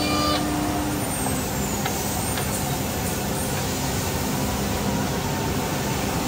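Holztek HT-R1D CNC router running: a steady machine whir and rush, with a faint high whine that falls in pitch about a second in and rises again around two seconds in.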